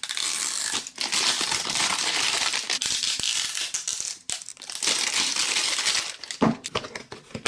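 Clear plastic shrink wrap crinkling and crackling as fingers peel it off a plastic cupcake-shaped toy container. It comes in two long stretches, with a few separate clicks near the end.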